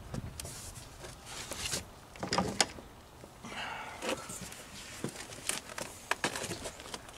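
Scattered knocks and clicks as a Singer 306 sewing machine head is handled and tipped back on its hinges, the loudest knock about two and a half seconds in, with a brief rubbing sound soon after.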